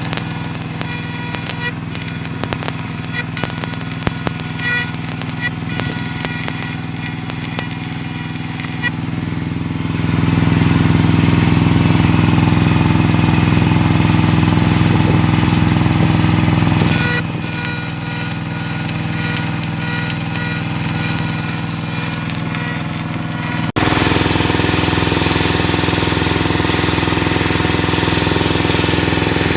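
A small engine running steadily. It gets louder for several seconds in the middle, drops back, then steps up abruptly again about two-thirds of the way through.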